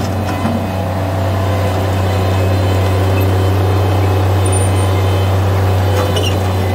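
Bobcat MT85 mini track loader's diesel engine running at a steady pitch while the loader raises and tips its bucket. A constant low hum, with a few faint clicks near the end.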